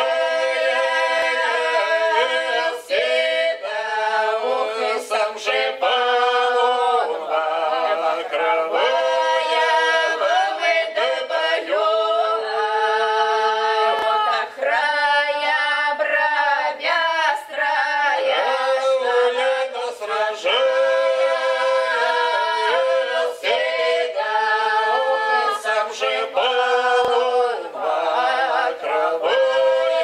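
Small Cossack folk ensemble of four women and a man singing unaccompanied in close harmony: a drawn-out historical song (protyazhnaya) of long held notes, with short breaks between phrases.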